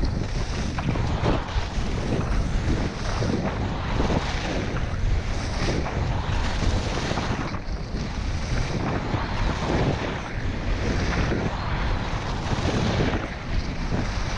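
Wind buffeting a GoPro Hero 5's microphone during a fast downhill ski run at about 40 km/h, mixed with the skis scraping over packed snow. The rush swells and eases every second or two.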